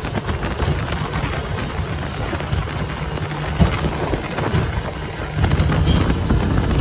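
Yamaha 115 hp outboard running steadily at cruising speed, about 4000 rpm with the boat doing around 21 knots, under heavy wind rumble on the microphone and water rushing past the hull; the noise grows louder about five seconds in.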